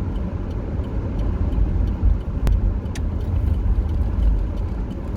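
Car cabin noise while driving: a steady low rumble of engine and tyres, with a sharp click about two and a half seconds in and a fainter one half a second later.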